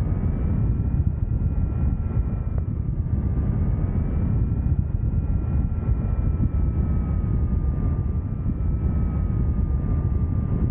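Wind rushing over the camera microphone as a paraglider descends fast in steep turns, a loud steady rumble. Under it runs a faint continuous tone that drifts slowly up and down in pitch.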